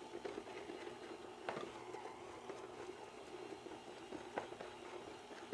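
KitchenAid stand mixer running faintly with its dicer attachment, a low steady hum, with a few light clicks and knocks, the clearest about a second and a half in and again near the end.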